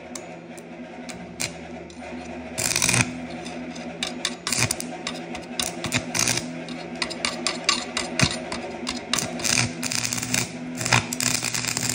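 Stick welding with a standard E7018 electrode on an old AC buzz-box welder: a steady transformer hum, then about two and a half seconds in the arc strikes with a loud burst and goes on crackling and spitting irregularly. The rod is made for DC electrode positive and is being run on AC, for which the welder advises a 7018 AC rod instead.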